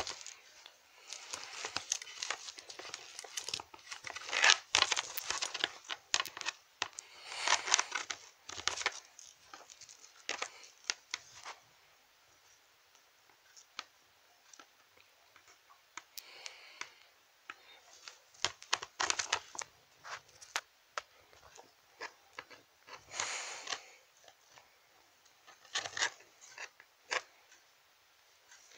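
Handling noise from dolls and toys being moved about a plastic toy castle: irregular rustling and crinkling with scattered clicks and knocks. It comes in bursts, busy at first, with a quiet stretch in the middle and a few separate rustles near the end.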